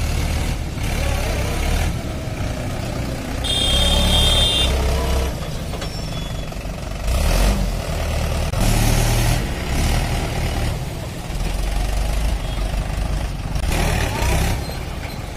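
Mahindra 575 DI tractor's four-cylinder diesel engine running as it hauls a trolley loaded with soil, its loudness rising and falling. A brief high-pitched tone sounds about four seconds in.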